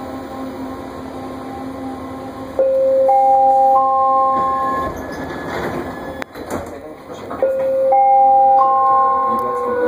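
Vancouver SkyTrain door chime: three held electronic notes stepping upward, sounding twice over the steady hum of the standing train, with a sharp knock between the two chimes.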